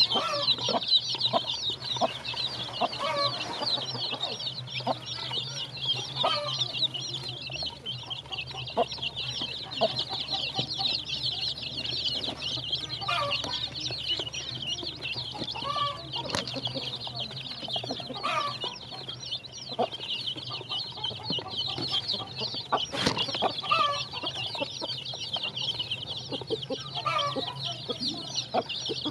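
A brood of chicks peeping without pause in rapid high chirps, with a mother hen clucking every few seconds.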